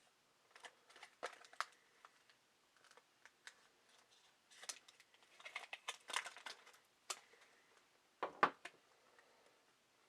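Lantern packaging box being handled and worked open: scattered crinkles, clicks and rustles, busiest around the middle, with a sharper knock near the end.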